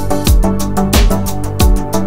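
Background music with a steady beat: a deep kick drum about every two-thirds of a second, lighter percussion strokes between, over sustained low notes.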